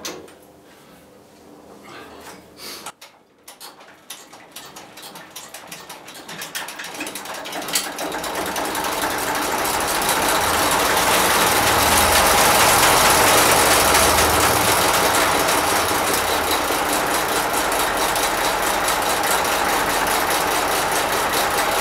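Lister JP3 three-cylinder marine diesel being started by hand: a rhythmic ticking that speeds up from about three seconds in, then builds into the engine running steadily, loudest from about ten seconds in.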